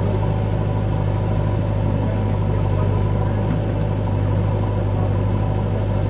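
Diesel engines of a John Deere tractor and a JCB 3DX backhoe loader idling with a steady, even low hum.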